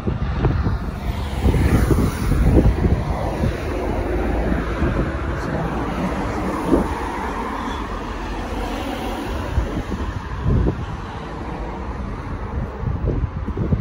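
Road traffic, cars going by on the road alongside, over wind rumbling and buffeting on the microphone in uneven gusts.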